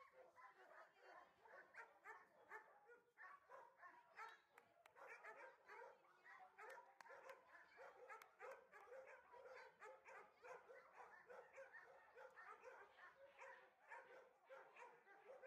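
Dogs barking faintly, rapid and overlapping, several barks a second without a break.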